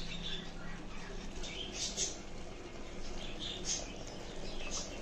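Chicken pieces in oily masala gravy sizzling in a pressure cooker pot over a medium flame, with irregular small crackles and pops as the oil begins to separate. A faint steady hum sits underneath.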